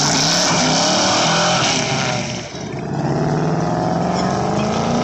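A car engine running loud at high revs. After a brief dip about halfway through, the engine note climbs steadily as the car accelerates.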